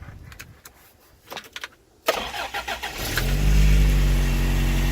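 A few light clicks, then about two seconds in the starter cranks the freshly rebuilt Toyota pickup engine. It catches within about a second on the first try and settles into a steady idle.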